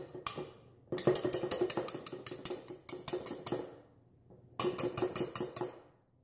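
Wire whisk attachment rattling and scraping against a stainless steel mixing bowl in quick, rhythmic strokes while a thick chocolate whipped-cream mixture is stirred by hand. A short run at the start, a longer one from about a second in to nearly four seconds, and another near the end.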